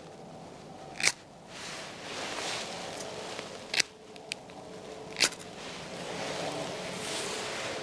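Dry wood cracking sharply: three loud cracks and one fainter click, a second or more apart, over a steady outdoor hiss.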